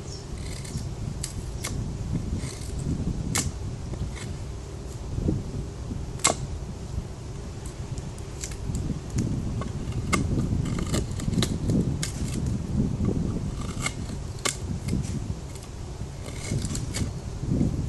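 Knife work with a Spyderco Paramilitary 2 folding knife: irregular sharp clicks, snaps and scrapes over a low, uneven rumble of handling.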